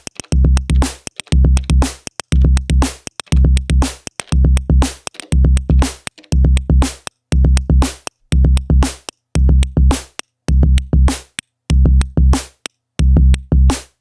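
Elektron Digitone FM synthesizer playing a programmed electronic drum pattern. Deep, heavy kick-like hits with sharp clicky percussion on top loop in a tight stop-start rhythm, each short chunk cut off by a brief silence.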